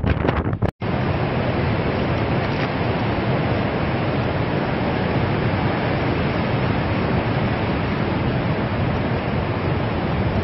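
Wind buffeting the microphone in gusts, cut off suddenly under a second in, followed by a steady, even rush of heavy storm surf and wind.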